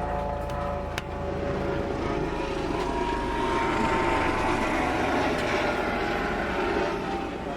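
A steady engine drone with a held hum over a rumble, growing louder toward the middle and easing off near the end, with a sharp click about a second in.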